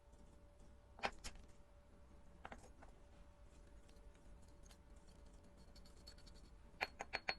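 Faint, sparse clicks and taps of small tools and parts being handled during wristwatch repair, with a quick run of four clicks near the end, over a low steady hum.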